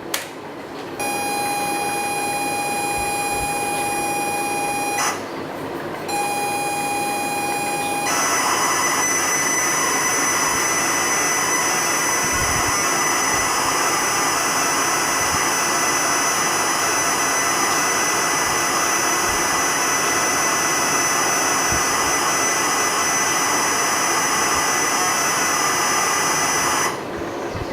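ZX Spectrum tape-loading signal played from a WAV file: a steady high pilot tone for about four seconds, a brief break, a shorter stretch of the same tone, then from about eight seconds in the harsh, hissing screech of a data block, which stops near the end.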